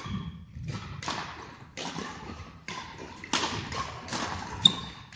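Badminton rally: rackets striking a shuttlecock back and forth, with footfalls on the court floor. It is a string of sharp hits about a second apart, the loudest one near the end.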